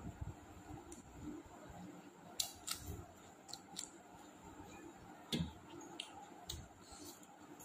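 Small scattered clicks and taps of someone eating a meal from a plate, with a louder knock about five seconds in.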